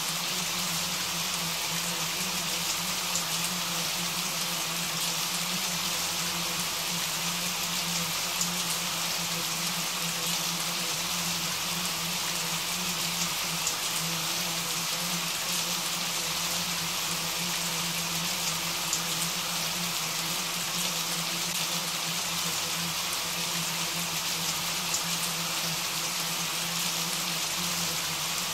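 Steady rain: an even hiss with scattered sharper drop ticks, over a low steady hum.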